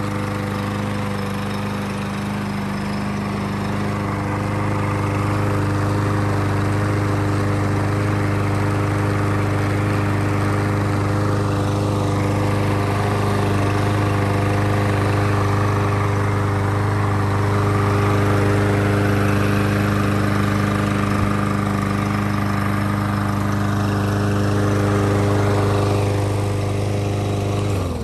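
Briggs & Stratton walk-behind lawn mower engine running at a steady speed with no surging, its plastic carburetor now fitted with a new main jet. It cuts off at the very end.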